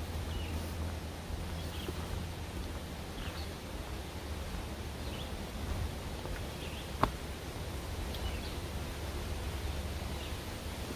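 Outdoor woodland ambience: a bird chirping faintly about once a second over a steady low rumble, with one sharp click about seven seconds in.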